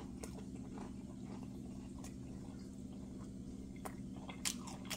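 Quiet chewing and crunching of a Salted Caramel Twix cookie bar, with a few faint clicks, over a steady low hum.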